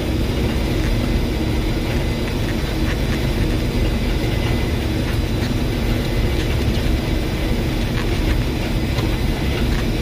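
Case IH 1680 combine running steadily while picking up a canola swath: a constant engine drone with the steady hum of the pickup header and threshing machinery, and faint ticks now and then.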